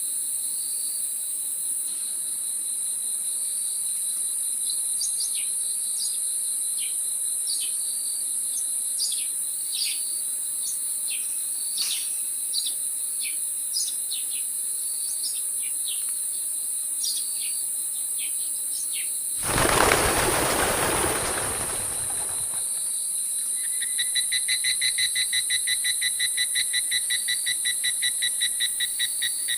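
Natural outdoor ambience: a steady high-pitched insect drone, with scattered short bird chirps through the first half. A brief rushing noise comes about two-thirds of the way in, then a fast, evenly pulsing trill runs through the last few seconds.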